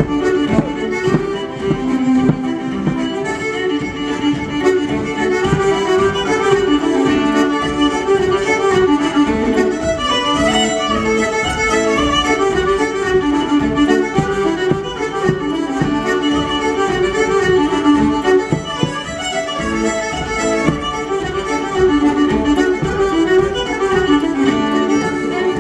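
Fiddle and button accordion playing a traditional Irish reel together live, a fast, unbroken run of melody notes.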